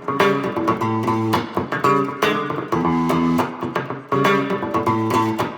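Handmade Les Paul-style electric guitar with the pickup selector in the center position (both pickups on), played through a 5E7 tube amplifier in a clean tone with a little reverb and compression: a funk rhythm of short chord stabs and scratchy muted strums.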